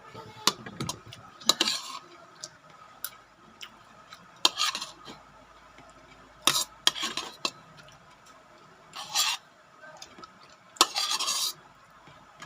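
Eating utensils clinking and scraping against a plate in short separate bouts: sharp clicks followed by brief scrapes, about five times.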